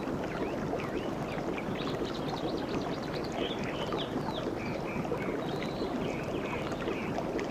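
Sea waves washing steadily, with many short bird chirps over them.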